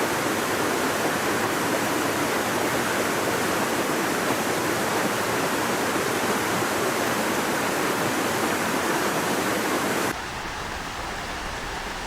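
Steady rush of fast-flowing water. About ten seconds in it cuts to a quieter, duller rush with more low rumble.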